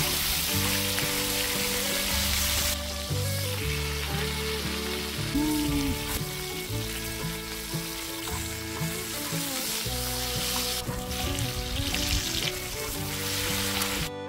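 Tomahawk steaks sizzling in hot fat on a big cast-iron cauldron-lid griddle over a wood fire as they are basted; the sizzle grows stronger again about 11 seconds in. Background music plays over it.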